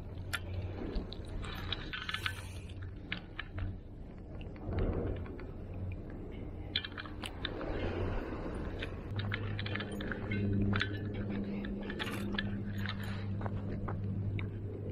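Close handling noise from gloved hands working fishing tackle: scattered small clicks, crunchy rustles and scrapes, over a low steady hum.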